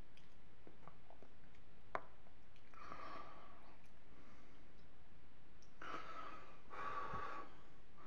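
Close-miked mukbang eating sounds: a single sharp click about two seconds in, then three short breathy mouth and nose sounds as a forkful of penne in béchamel is eaten.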